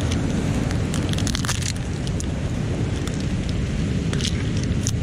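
Mussel shells clicking and crackling as a cluster of mussels is handled and pulled apart, over a steady low rumble of wind on the microphone.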